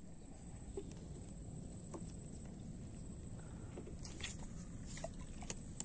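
Camera handling noise, rubbing against clothing, with several light clicks and taps in a cluster near the end as the fishing tackle is handled. A steady high-pitched whine runs underneath.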